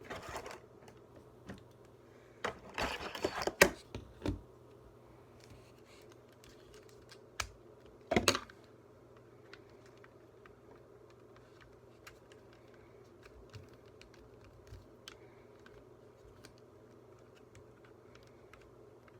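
Small plastic clicks and rustling from handling a Rubik's cube and its plastic accessories. They come in a busy cluster around three seconds in and a sharp burst near eight seconds, then only faint scattered ticks.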